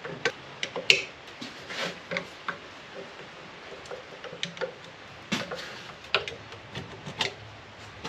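Screwdriver prying a stator out of a GM SI-series alternator's rear housing: scattered sharp metal clicks and light scrapes, the loudest about a second in and twice more near the end.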